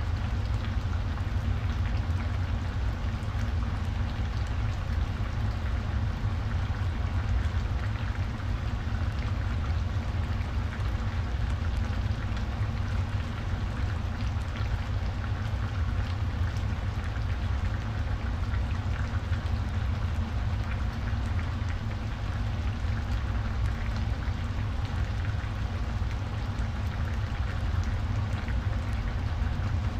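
Ginataang gulay, a coconut-milk vegetable and tilapia stew, simmering in an open pan: steady bubbling with many small pops over a steady low hum.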